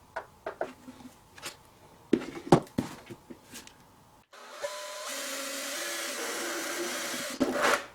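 Scattered knocks and clicks of handling, then a small electric power tool runs steadily for about three seconds, boring a hole in a plastic container. It ends in a louder rough burst.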